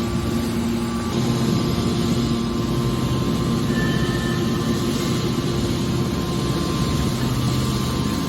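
Hydraulic metal baler running: a steady low machine hum with constant tones under it.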